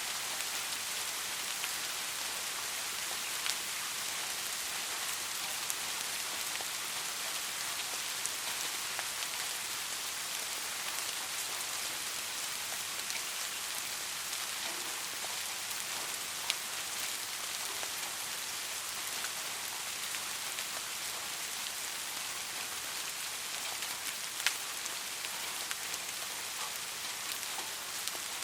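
Steady soft rain falling, an even hiss of many raindrops, with an occasional sharper single drop tapping out above it, the clearest about halfway through and again near the end.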